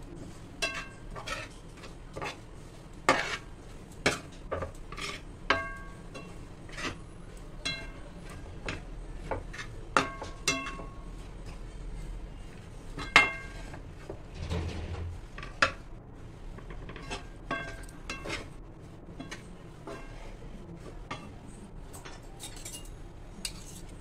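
Steel spoon stirring a thick paste of ground melon seeds and sugar syrup in a pan, scraping the pan and knocking against it. It gives irregular ringing clinks about once or twice a second, the loudest about halfway through.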